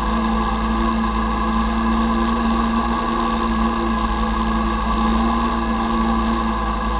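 Quad (ATV) engine running at a steady speed, a constant droning note with no change in pitch.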